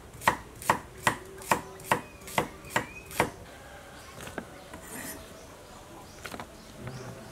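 A knife chopping through carrots on a wooden cutting board: eight crisp, even strokes about two and a half a second, then a few softer, scattered taps after about three seconds.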